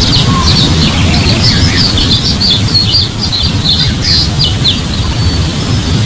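Small birds chirping in quick short notes, a busy burst of calls that thins out near the end, over a loud low rumble of wind on the microphone.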